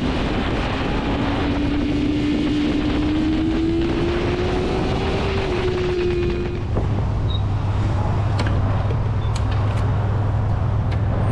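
BMW S1000RR's inline-four engine running on the move with wind noise, its note rising slowly in pitch for about five seconds. About seven seconds in, it gives way to a steady low idle, with a few light clicks near the end.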